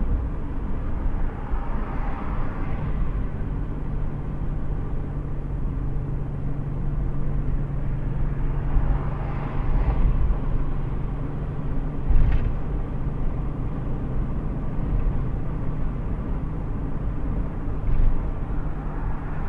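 Steady road and engine noise heard from inside a car driving at highway speed, a low drone with a steady hum, and a brief knock about twelve seconds in.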